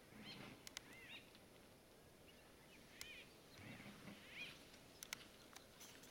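Faint wild ambience: a bird gives short, arched calls about five times, with a few soft clicks in between.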